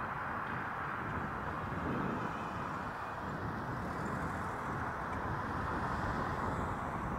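Cars driving past on a road, a steady rush of tyre and road noise.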